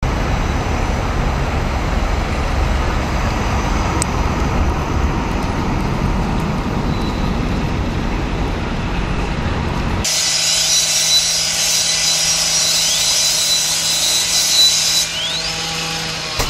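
Fire engines running at a fire scene: a steady low rumble. About ten seconds in, it changes abruptly to a loud steady hiss over a low hum, with a few short rising squeaks near the end.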